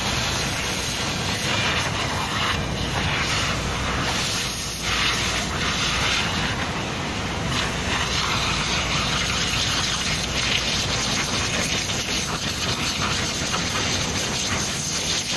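Steady rushing noise over a low rumble, even throughout, with no distinct events.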